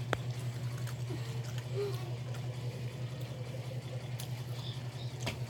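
A steady low machine hum, with a sharp click just after the start and another near the end.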